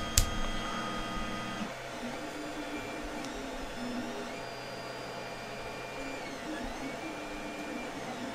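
Creality 3D printer's stepper motors whining as a print starts. For the first second and a half or so it holds a steady whine of several tones, then the tones step and glide up and down as the axes move at changing speeds. Two short clicks come right at the start.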